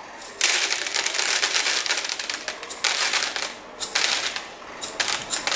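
Whole roasted coffee beans poured from a cup into a plastic bowl on a scale: a dense crackling rattle of beans landing, stopping and starting several times as they are weighed out.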